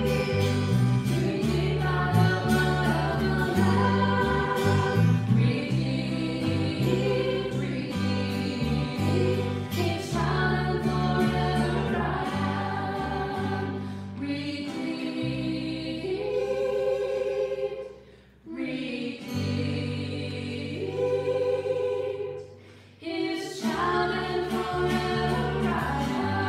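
A small group of women and a man singing a Christian hymn together, accompanied by strummed acoustic guitars. There are short breaks between phrases about eighteen and twenty-two seconds in.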